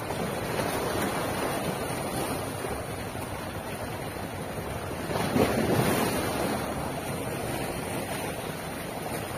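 Small sea waves washing and breaking over shoreline rocks, with a louder surge about five seconds in, and wind buffeting the microphone.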